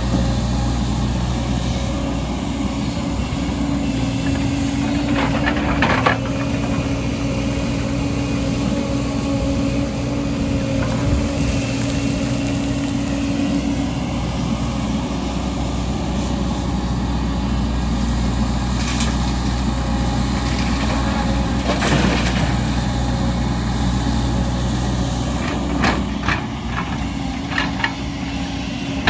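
Heavy diesel engine of an excavator working: a steady running drone, with a humming tone in it that fades about halfway through. Several metallic clanks and knocks come through, around six seconds in, twice in the second half, and in a cluster near the end.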